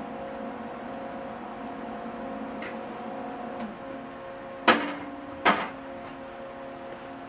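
A steady hum with several fixed tones, like a running motor or appliance, with two sharp knocks a little under a second apart just past the middle.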